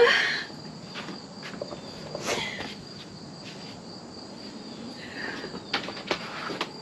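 Insects chirping steadily at one high pitch throughout. A short, loud rising squeal comes right at the start, and scattered light clicks and rustles of handling follow.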